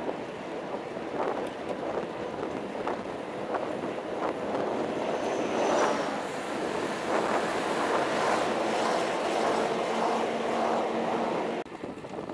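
Wind rushing over the microphone of a camera on a moving bicycle, with road traffic noise underneath; it drops away suddenly near the end.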